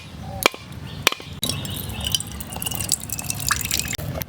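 A coconut struck twice with sharp knocks as it is cracked open, then its water splashing and dripping out of the split shell.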